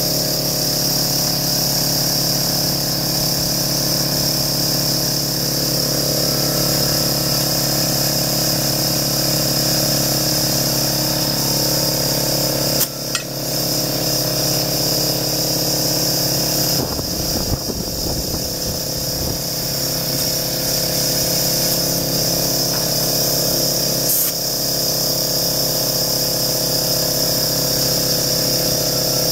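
Electric air compressor running steadily, pumping air through a hose into a tyre. Two sharp clicks break the steady sound, about 13 seconds in and again near 24 seconds.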